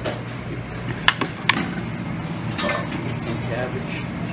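Busy restaurant buffet background: a steady low hum and faint voices, with two sharp clinks of metal a little after a second in.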